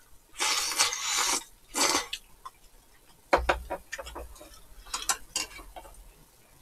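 Eating at the table: two noisy slurps in the first two seconds, the first long and the second short. After that, chopsticks click against dishes, with a low thump a little past three seconds in.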